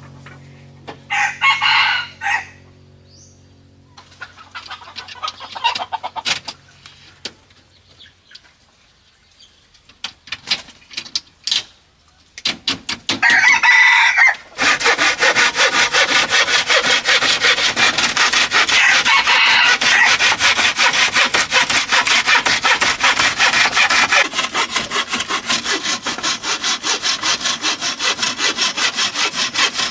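A rooster crows about a second in and again about thirteen seconds in. Then a hand saw starts cutting bamboo, with rapid, steady strokes for the rest of the time.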